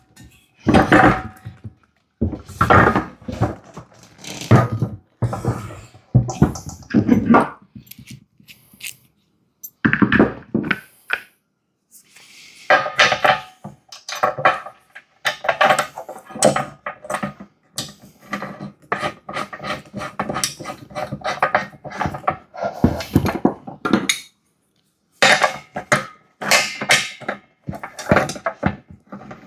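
Metal hardware clanking and knocking as an air compressor's wheel, axle bolt and lock washer are fitted and tightened, with a long run of rapid clicking and rattling through the middle.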